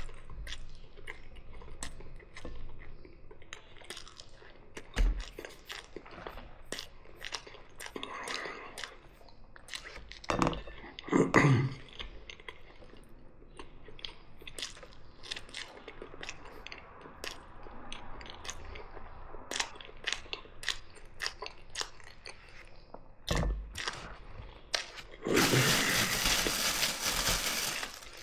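Close-miked eating sounds of a meal of mici sausages, fried eggs and fries: chewing with many short crunches and wet mouth clicks. Near the end a loud rushing noise lasts about two and a half seconds.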